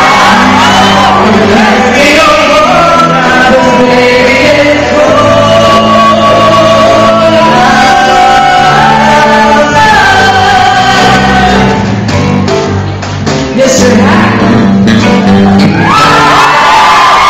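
Live band playing a song: singing voices over electric guitar, bass guitar and drum kit. The music thins briefly about two-thirds of the way through, then comes back in full.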